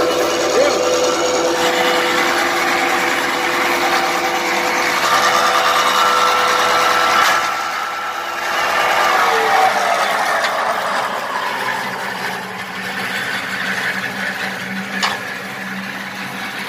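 Electric motor of a block-making machine running steadily while it vibrates concrete into the mould for a fresh hollow block, then switched off about nine seconds in and winding down with a falling pitch. Afterwards, quieter metal clatter with one sharp knock near the end.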